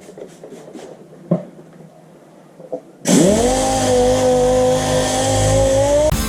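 A couple of light knocks, then about three seconds in an air-powered dual-action (DA) sander starts up. Its whine rises quickly and holds a steady pitch over a loud air hiss, then stops near the end.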